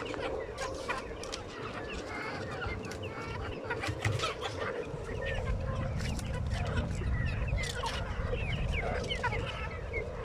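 A flock of chickens clucking and calling, with many short high calls overlapping throughout. A low rumble runs underneath and grows stronger in the second half.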